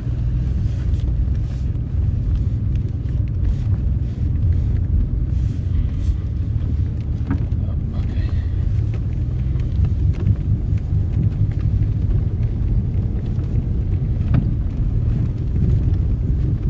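Alfa Romeo Spider V6 rolling down a snow-covered road on snow chains, heard from inside the cabin: a steady low rumble with scattered light knocks.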